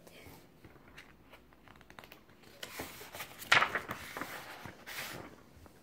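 A page of a large paper picture book being turned by hand: paper rustling and flapping, loudest about three and a half seconds in.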